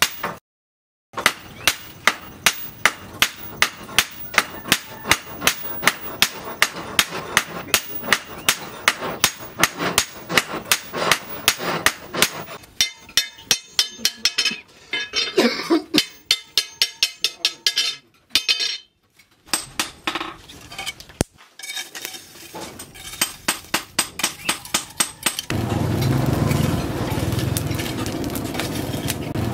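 Hammer blows on hot steel at an anvil, a steady rhythm of about two to three ringing strikes a second, thinning out after about twelve seconds. Near the end a steady low rushing from the burning charcoal forge takes over.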